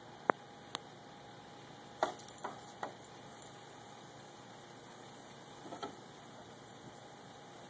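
Metal tags on a dog's collar clinking as she moves her head: a sharp single click near the start, a little cluster of jingles about two seconds in, and another shortly before the end.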